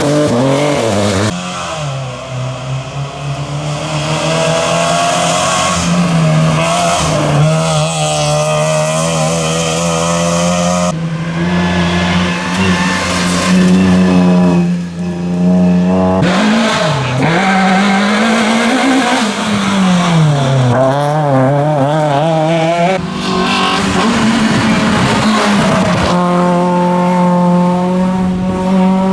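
Rally cars' engines revving hard, one car after another, the pitch climbing and dropping sharply with each gear change and lift.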